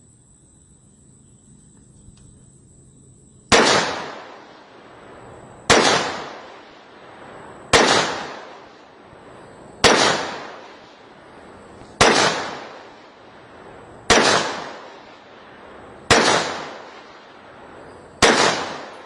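AR-15 rifle firing eight single shots in slow, evenly paced succession, about one every two seconds starting a few seconds in. Each shot is a sharp crack with a short echoing tail, loud enough to set the shooter's ear ringing.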